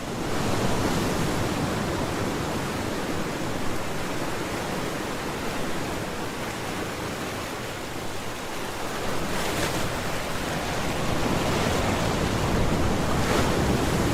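Steady rushing noise like surf or wind, swelling louder in the second half.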